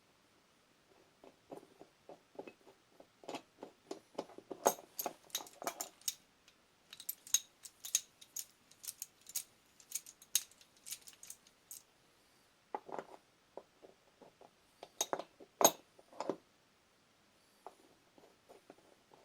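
Metal tool parts clicking and clinking in irregular bursts as a three-jaw gear puller is taken apart and handled.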